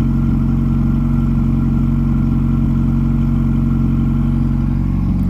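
1996 Honda Prelude's non-VTEC H23 2.3-litre four-cylinder, fitted with an aftermarket header, idling steadily. It is running on a fast cold idle of about 1500 rpm because the engine is still cold.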